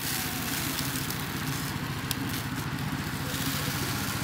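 A small engine runs steadily with a fast, even chugging pulse. Over it is a light hiss of dry rice grains pouring from a plastic mug into a plastic bucket.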